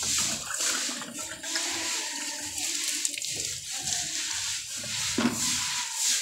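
Water running and splashing on a wet concrete floor as the floor is washed down by hand, with a short louder splash about five seconds in.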